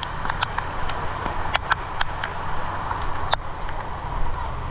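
Car engines running in slow, jammed street traffic, a steady low rumble, with rain drops ticking irregularly close by.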